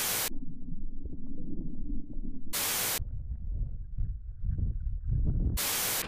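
TV-static sound effect in three short hissing bursts, about two and a half seconds apart, with a low throbbing hum between them.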